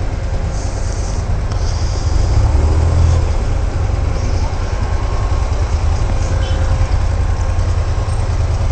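Onboard sound of a motorcycle riding slowly through city traffic: its engine running with a steady low rumble and wind noise on the camera microphone, a bus running close alongside. It grows a little louder about two to three seconds in.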